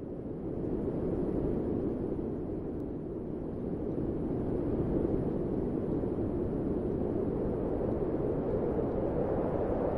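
A steady rushing noise that fades in over the first second and then holds even.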